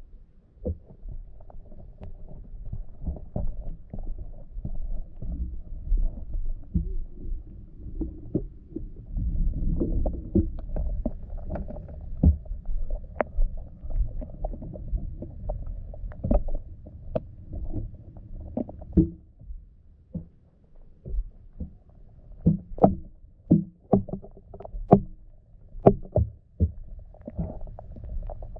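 Muffled underwater sound from a camera submerged in a creek inside a wire-mesh minnow trap: a low rumble of moving water with scattered clicks and knocks, which come more often in the second half.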